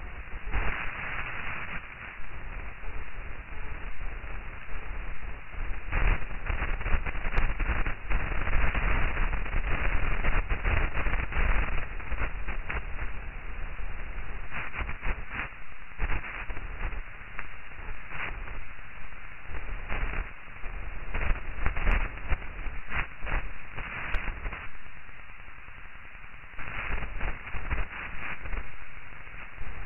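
Static-like hiss with a deep rumble underneath, swelling and fading irregularly in gusts.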